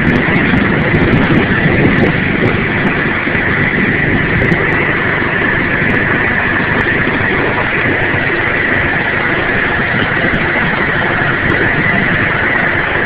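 Engine of a snow-clearing machine running steadily.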